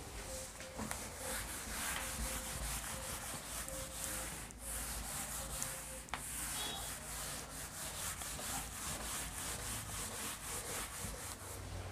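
A whiteboard being wiped clean by hand with an eraser pad: a soft, dry rubbing in many quick back-and-forth strokes.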